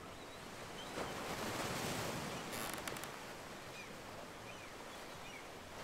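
Ocean waves washing, swelling about a second in and easing off after the third second.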